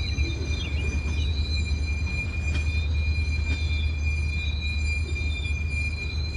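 Covered hopper cars of a freight train rolling slowly past with a steady low rumble, over which the wheels give a steady high-pitched squeal that wavers at times. A few sharp clicks sound from the wheels and couplings.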